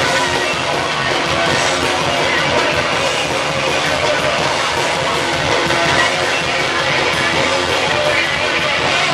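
A live rock band playing loud, with electric guitar and drums, heard from the audience as a dense, steady wall of sound.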